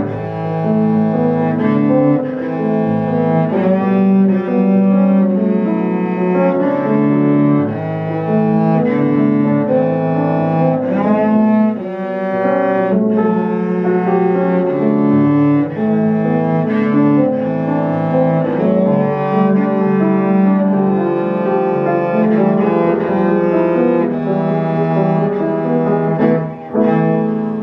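Cello and piano playing a cello sonata; the bowed cello carries the melody in long held notes that step from pitch to pitch.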